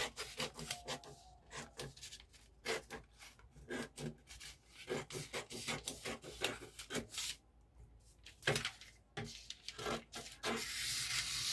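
Scissors snipping through pattern paper in a run of short, irregular cuts with a brief pause, then a rustle of paper being handled near the end.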